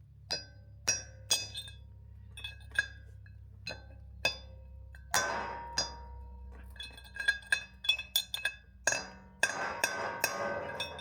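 Hammer blows on a steel punch, driving the old bearing cone out of a caravan wheel hub: sharp metallic clinks that ring on after each strike. The strikes are spaced out at first, then come fast and close together near the end.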